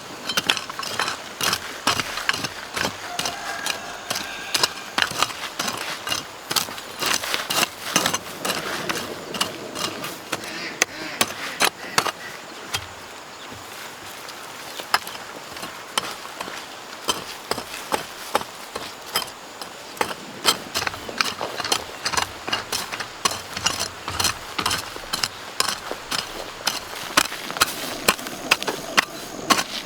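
Many sharp, irregular clicks and light knocks from hand work, spread across the whole stretch.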